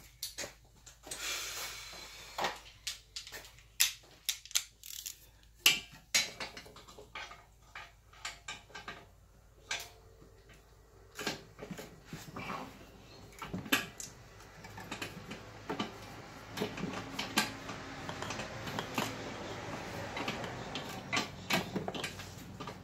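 Metal hand tools clicking and clinking against metal parts while working on exhaust downpipe hardware deep in a car's engine bay. Irregular clicks and knocks, sparse at first and busier from about halfway through.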